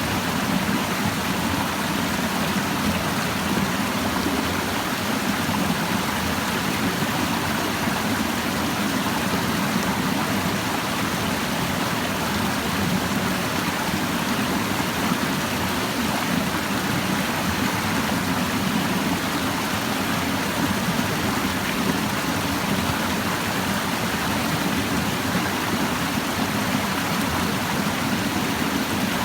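A clear stream babbling and rushing over rocks, a steady, even wash of flowing water.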